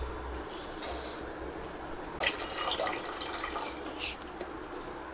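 Water pouring steadily into a stainless steel pot over broken seeraga samba rice, filling it to soak the rice.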